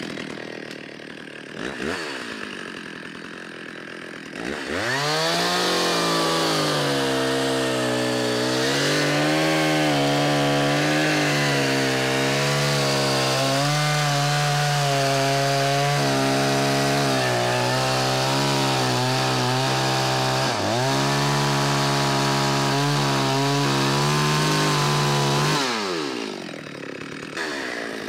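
Stihl two-stroke chainsaw idling, blipped once about two seconds in, then run at full throttle from about four seconds in and cut down through a log lying on plywood for some twenty seconds, its engine note wavering under the load. Near the end the throttle is released and the saw drops back toward idle, then revs up again.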